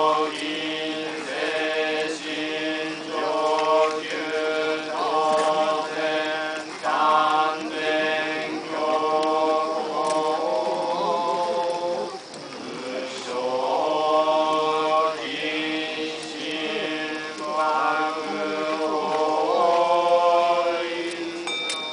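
Tendai Buddhist monks chanting a sutra together, in long held notes that rise and fall between short breaths.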